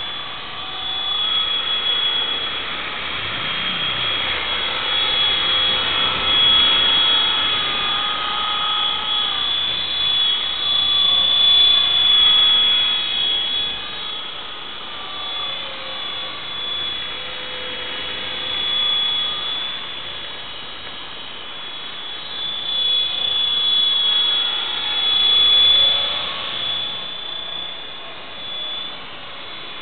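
Exceed RC EXI 450 electric RC helicopter in flight: a high-pitched whine whose pitch wanders up and down with the throttle. It grows louder as the helicopter comes closer, twice, about halfway through and again shortly before the end.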